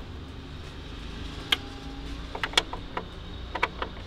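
Several sharp clicks and light taps, in small clusters starting about a second and a half in, over a low steady hum.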